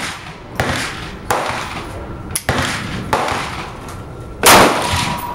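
Semi-automatic .22 LR rifle, a Ruger 10/22, firing five sharp shots at uneven intervals. The loudest shot comes about four and a half seconds in.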